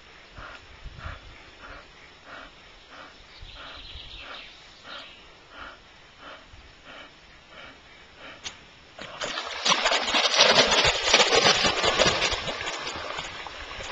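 A bull terrier swimming, with soft, regular sounds about twice a second, then about nine seconds in a loud burst of splashing water as the dog dives, fading over a few seconds.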